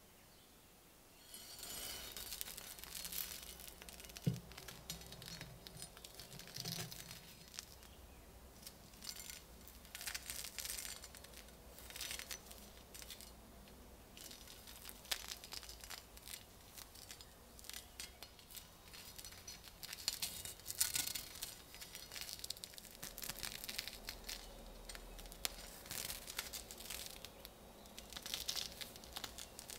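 Gloved hands handling and turning a rust-crusted WW1 German Ersatz bayonet: irregular scratchy rustling of the glove fabric rubbing over the rough rust, starting about a second and a half in, with a light knock about four seconds in.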